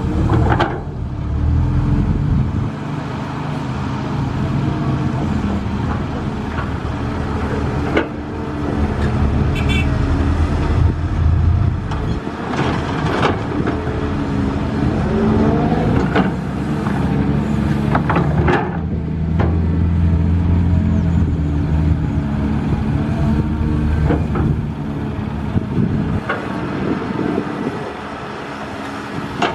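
Heavy diesel engines of construction machines and trucks running, their pitch rising and falling as they work, with a few sharp clanks.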